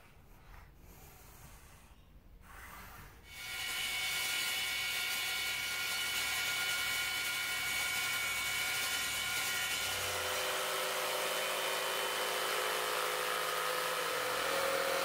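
Power saw cutting MDF, starting about three seconds in: a table saw running with a steady whine. About ten seconds in the sound changes as a jigsaw takes over.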